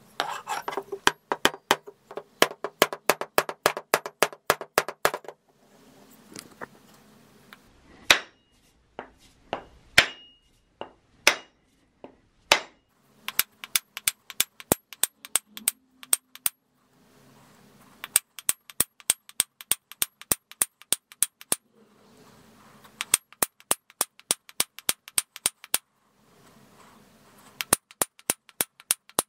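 Forging hammer striking the hot steel of a ball peen hammer head on an anvil, in quick runs of about five blows a second with short pauses between runs. In the middle come a handful of slower single blows that leave a ringing tone.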